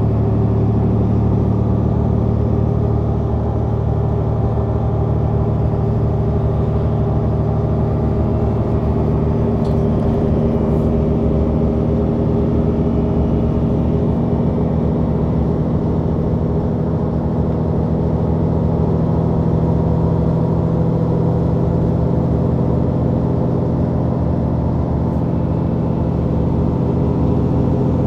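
The rear-mounted engine and Voith automatic gearbox of a Mercedes-Benz O530 Citaro bus running steadily, heard from inside the cabin directly above the engine compartment.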